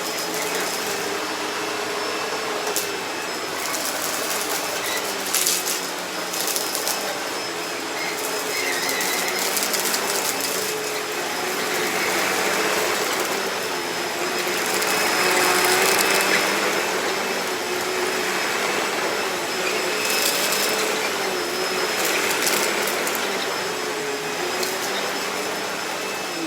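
Hoover Deluxe Elite Rewind upright vacuum cleaner running steadily over shredded paper, with a few short rattles as pieces are drawn in. It is having trouble picking up the shredded paper.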